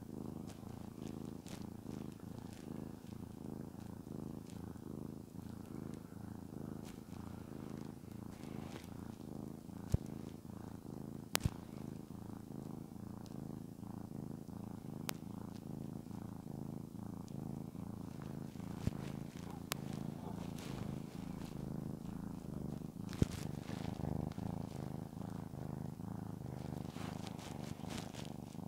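Domestic cat purring steadily as it is stroked, a low continuous rumble, the sign of a content cat enjoying being petted. Faint rustling of the hand on fur and a few sharp clicks along the way.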